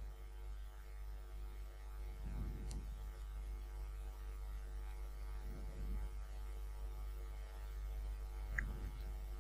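Steady low electrical mains hum in the recording, with a few faint clicks.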